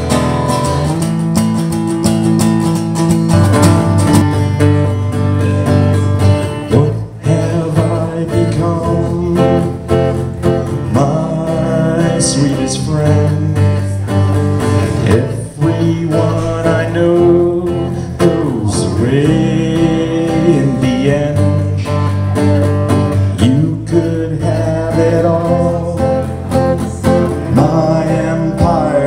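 Live acoustic music: acoustic guitar played with a singing voice.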